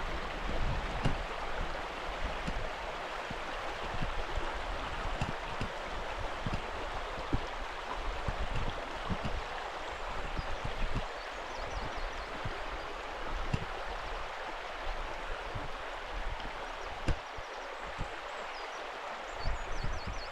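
A small hill burn rushing and gurgling over stones, a steady even rush, with irregular soft low thuds through it.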